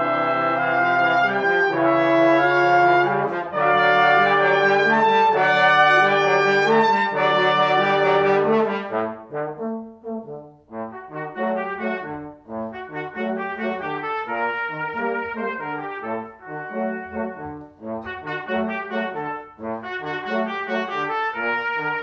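Brass quintet of two trumpets, French horn, trombone and tuba playing. Loud sustained chords for about the first nine seconds, then after a brief dip a lighter passage of short detached notes in an even rhythm.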